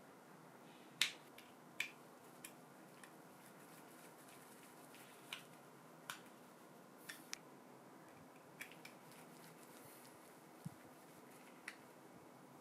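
Scattered sharp clicks and light taps, about a dozen at irregular intervals and the loudest about a second in, from small parts being handled.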